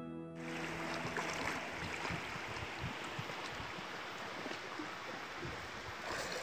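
Steady rush of river water as guitar music dies away in the first second or two.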